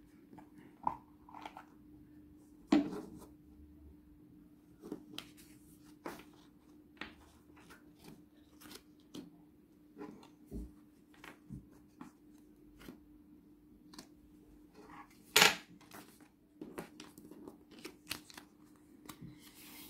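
Oracle cards being handled on a tabletop: scattered light taps, slides and flicks as cards are picked up and laid down, with one louder slap about fifteen seconds in. A faint steady hum runs underneath.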